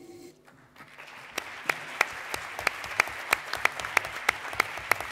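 Audience applause that swells up about a second in, with one pair of hands close by clapping sharply and evenly, about three claps a second, above the general clapping.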